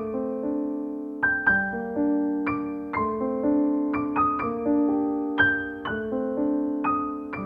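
Slow background piano music: single notes and chords struck a few times a second, each ringing on and fading.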